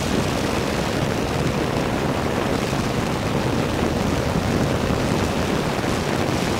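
Ultralight aircraft's engine and propeller running steadily in cruise flight, heard from on board, with a heavy rush of wind noise over the microphone.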